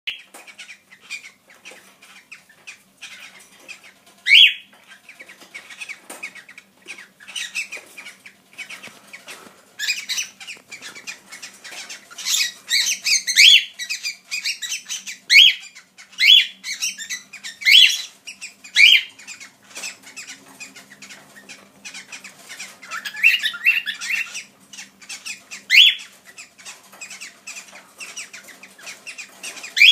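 Pet cockatiels calling: short, loud calls that rise in pitch, coming every second or two, with softer chirps and many small clicks in between.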